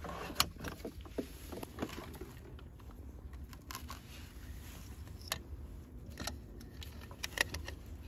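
Scattered sharp clicks and light knocks, a second or more apart, from hands working at a diesel heater's wiring and plug connectors, over a steady low rumble.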